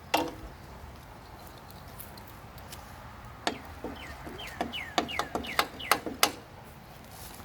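Bird chirping: a run of short, quickly falling notes, several in a row from about halfway through, mixed with a few sharp clicks.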